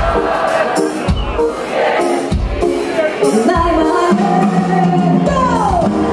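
Loud club music with singing over a beat, played through a nightclub's sound system, with a pitch sliding down near the end.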